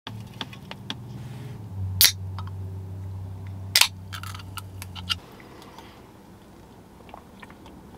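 A low steady hum that stops about five seconds in, with scattered light clicks and two loud sharp clicks, about two and four seconds in, inside a car cabin.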